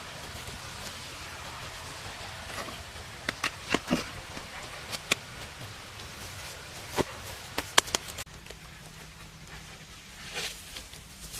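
Irregular sharp clicks and knocks over a steady hiss: a quick cluster about three to four seconds in, a pair near five seconds, and more around seven to eight seconds.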